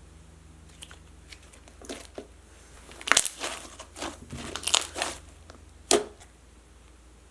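Hands squishing and stretching a large mass of reactivated slime, giving sharp sticky pops and crackles: a few faint clicks at first, then a burst of loud pops about halfway through and one last pop near the end.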